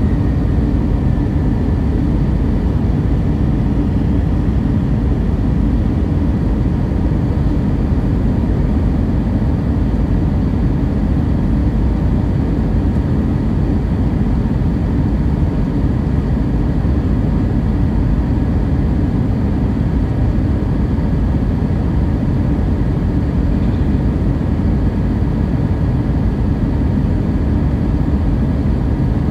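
Steady cabin noise of a jet airliner descending on approach, heard inside over the wing: a deep, even rush of engine and airflow, with a faint high whine above it.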